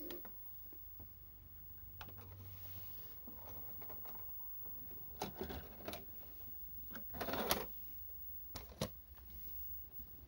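Sony SLV-D980P VHS deck stopping and ejecting a cassette: faint mechanism clicks and a low motor hum, clunks about five to six seconds in as the cassette comes out of the slot, then a louder plastic clatter about seven seconds in as the cassette is pulled out and the flap closes.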